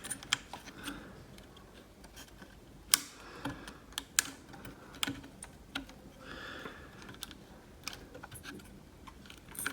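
Scattered small sharp clicks and taps of hands working the Mac mini's SO-DIMM memory slots, releasing the RAM modules, with two louder clicks about three and four seconds in and a short soft scrape around six seconds in.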